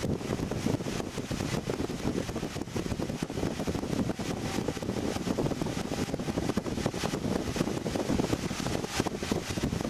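Inside the cabin of a Mitsubishi car accelerating flat out down a race-circuit straight, from about 150 to 190 km/h: steady, rough engine, wind and road noise.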